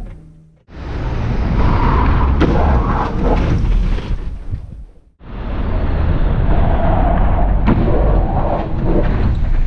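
Loud rushing noise of a moving Mazda MX-5 picked up by a car-mounted camera: wind buffeting and road noise with a few sharp knocks. It comes in two stretches that start abruptly, with a brief break about five seconds in.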